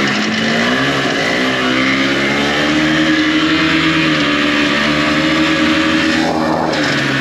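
Snowmobile engine running under throttle, its pitch rising and falling as the speed changes, with a brief dip about six seconds in.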